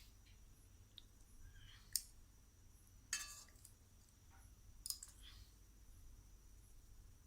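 A few light clicks and clinks of kitchen utensils or dishes being handled, three of them about a second apart, over near silence.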